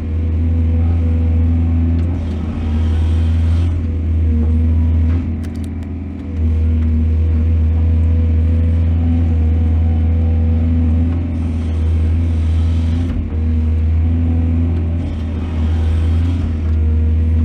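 Heavy diesel engine of earthmoving machinery running steadily with a deep, even hum, dipping briefly a few times, with stretches of rushing noise over it.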